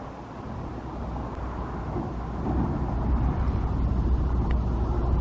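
Low rumble of a passing motor vehicle, growing steadily louder over a few seconds.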